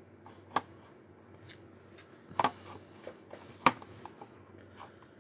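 Scattered single clicks and taps on a computer keyboard at a desk. There is a sharp click about half a second in, a quick double tap around two and a half seconds, and the loudest click about a second after that, over a faint steady low hum.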